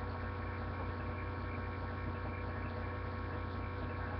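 Steady electrical mains hum with a low buzz, unchanging throughout; nothing else stands out.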